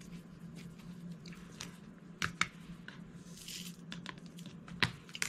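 Diamond painting drill pen picking up and setting small resin drills: scattered light clicks and taps, with a few sharper clicks.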